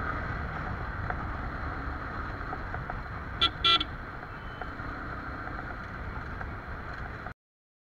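Yamaha R15 V3 motorcycle ridden at a steady cruise, its engine and road noise under heavy wind rush on an action camera's microphone. Two short horn beeps sound about three and a half seconds in, the second a little longer. The sound cuts off abruptly near the end.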